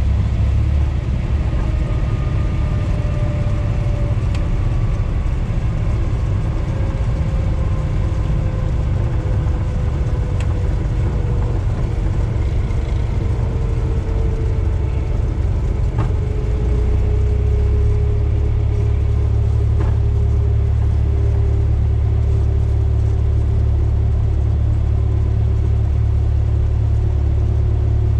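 Cessna 172's engine and propeller running, heard from inside the cabin as a steady low rumble with a faint tone slowly falling in pitch. About two-thirds of the way through, the rumble becomes steadier.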